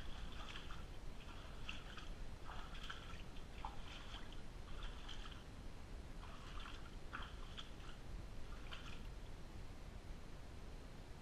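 Footsteps sloshing through shallow water in a narrow underground brick aqueduct tunnel: irregular splashes about one or two a second, stopping near the end, over a low steady rumble.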